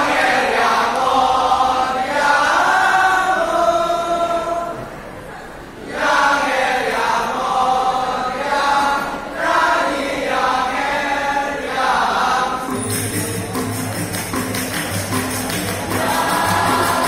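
Balinese gegenjekan vocal ensemble singing together, with kendang drums and clapping. The singing dips briefly about five seconds in and picks up again. Some seconds before the end the high voices fall away, leaving lower voices and percussion, and they come back near the end.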